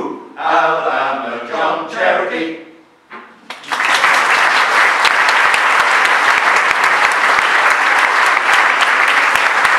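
An unaccompanied men's choir sings the final held notes of a sea shanty, fading out about three seconds in. Audience applause then breaks out and continues steadily.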